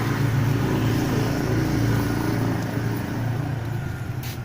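A motor vehicle's engine running close by in road traffic, a steady low hum that is loudest in the first few seconds and then fades, as if the vehicle is passing.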